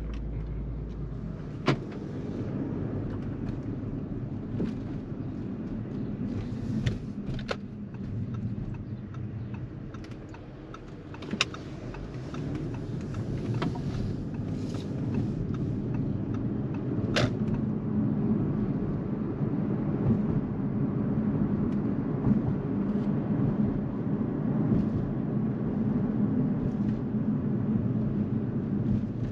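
Car driving, its engine and road noise a steady low rumble heard from inside the cabin, growing a little louder about halfway through. A few sharp clicks or taps stand out above it.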